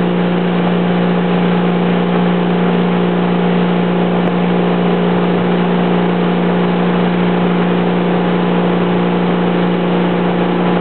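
Tow boat's engine running at a constant speed, a steady unchanging drone, over the rush of water and wind from the boat's wake.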